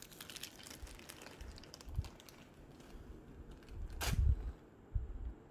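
Faint crinkling of a small plastic packaging baggie being handled and opened, with one sharper crackle about four seconds in and a few dull knocks against the table.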